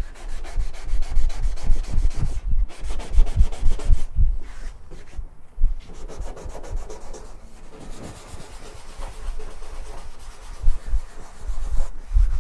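Abrasive scuff pad rubbed by hand in quick back-and-forth strokes over a painted car bonnet, with low thuds as the hand presses on the panel; the strokes are heavier in the first few seconds and lighter later. The paint is being scuffed up to key it for high-build primer.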